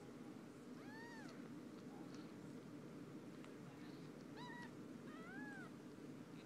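Newborn kittens mewing faintly while their mother licks them clean: a few short, high mews that rise and fall in pitch, one about a second in and two more past the middle.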